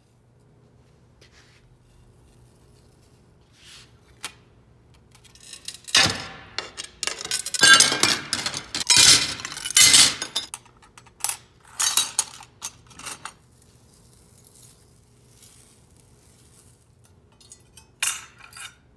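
Pieces of clear sheet glass clinking and breaking as they are handled and snapped by hand: a dense run of sharp clinks and cracks for about four seconds, a few more scattered clinks after it, and one last short burst near the end.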